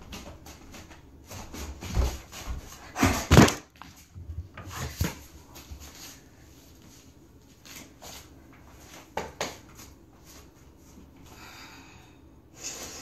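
Bare feet hopping and landing on a yoga mat while balancing on one leg: a run of heavy thuds about two to three and a half seconds in, the loudest at the end of that run, then more landings around five seconds and a few lighter ones later.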